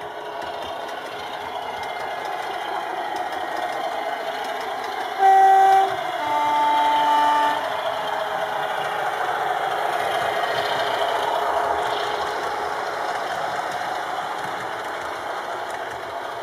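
A Loksound V4.0 sound decoder in a model Class 27 diesel locomotive plays the Class 27's Sulzer engine running, building and then easing off as the train passes. About five seconds in it sounds a two-tone horn: a short blast, then a longer one on a different note.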